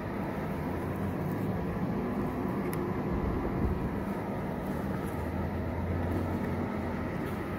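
Allegro 9538-25 explosion-proof confined space blower running steadily, pushing air through its 8-inch flexible duct with an even motor hum.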